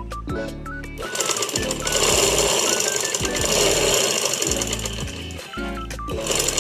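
Manual sewing machine running fast, stitching for about four seconds with a rapid, even clatter. Background music plays underneath and is heard alone at the start and near the end.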